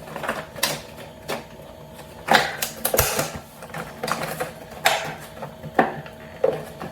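A doorknob set's packaging being opened and the parts handled: irregular clicks, knocks and short rustles, with a few louder knocks scattered through.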